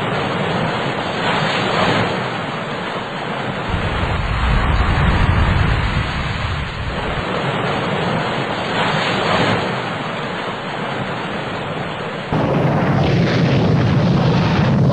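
Loud, rushing roar of wind and heavy breaking seas, swelling and easing every few seconds. Near the end it cuts abruptly to louder music with deep drums.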